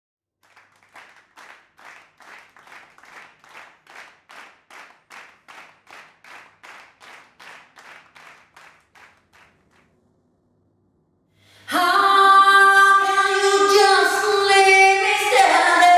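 Soft, evenly spaced claps, about two and a half a second, which fade out after about ten seconds. After a short silence, loud a cappella singing begins near the end, with several female voices holding notes in harmony.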